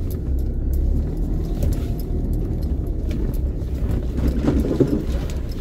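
Engine and road noise inside a moving pickup truck's cabin: a steady low drone with a few light clicks and rattles.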